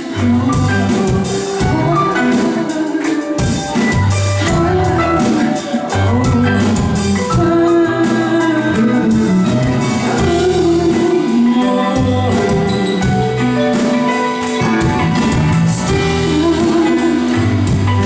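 Live rock band playing an instrumental stretch of a song: electric guitar and drum kit, loud and continuous.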